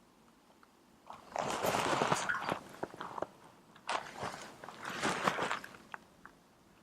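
Clip-on microphone rubbing against the fabric of a dress: three bursts of crackly, scratchy rustling, the first and longest starting about a second in.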